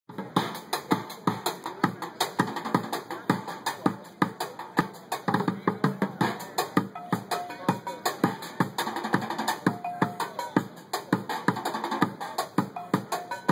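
Bucket drumming: drumsticks beating a fast, steady rhythm on upturned white plastic buckets, several sharp strikes a second.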